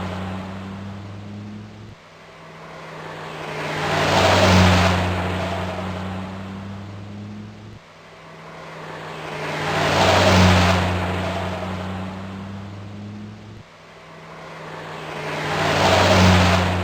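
Car passing by, looped: the engine sound swells to a peak and fades away, three times about six seconds apart, each pass cutting off abruptly before the next begins.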